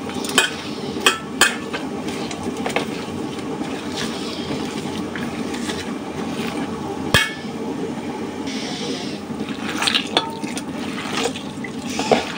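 A hand squeezing and mashing lightly boiled flat beans, sliced shallots, green chillies and coriander in a stainless steel bowl for a bharta: wet squelching with a few sharp clicks against the bowl, the loudest about seven seconds in, over a steady low background hiss.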